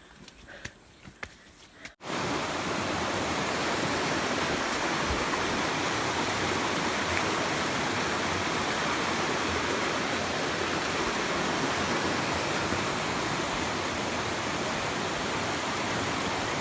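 Waterfall rushing steadily. It starts abruptly about two seconds in, after a few faint clicks in near-quiet.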